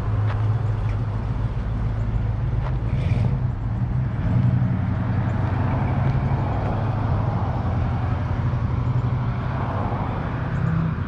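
Steady low hum of a running vehicle engine, with outdoor traffic noise around it; the hum shifts in pitch a couple of times.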